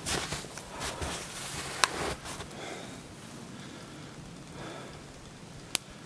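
Shuffling and rustling in the first couple of seconds, then quieter, broken by two single sharp snaps, about two seconds in and near the end.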